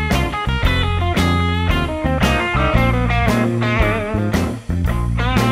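Background music: plucked electric guitar with bent notes over a steady bass line, blues-rock style.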